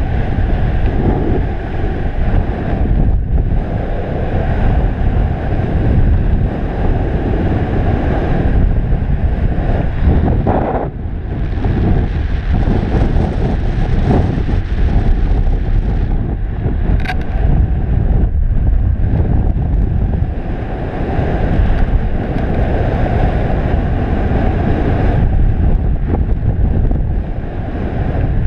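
Wind rushing and buffeting over the camera microphone in paraglider flight: a loud, steady low rumble with a few brief lulls.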